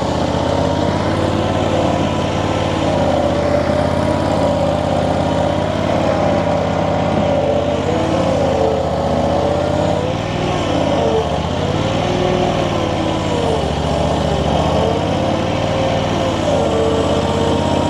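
Infront YF380 mini skid steer running at raised throttle, its engine droning steadily under a whine that wavers up and down as the hydraulics drive the machine and work the bucket.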